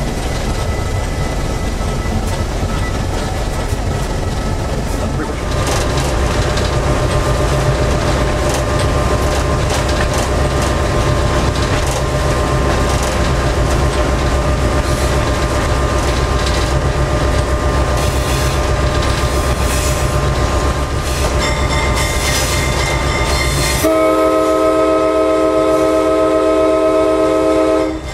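Rumble of an EMD GP-series diesel locomotive's engine and wheels from inside the cab as it runs along the track. About 24 seconds in, the locomotive's multi-chime air horn blows one long blast of about four seconds, then cuts off sharply.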